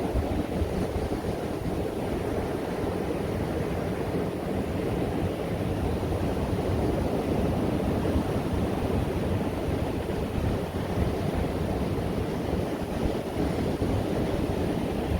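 Strong onshore wind buffeting the microphone over breaking sea surf, a steady rough rush heaviest in the low end.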